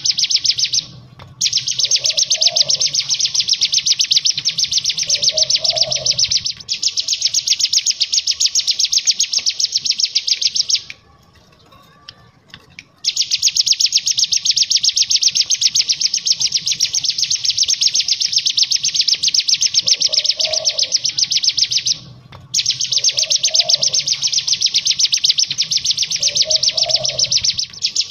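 Caged cigun (ciblek gunung, a prinia) singing its 'ngebren' song: long, very rapid high trills lasting several seconds each, broken by short pauses and one longer pause about eleven seconds in.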